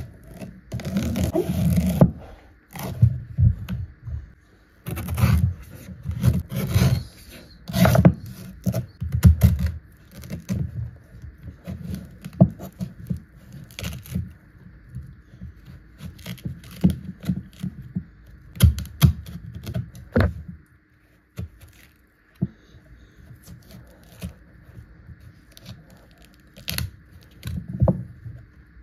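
Large kitchen knife cutting into a green coconut's husk and shell on a wooden cutting board: irregular sharp knocks of the blade and short scraping and tearing sounds as pieces are sliced away, busiest and loudest in the first ten seconds.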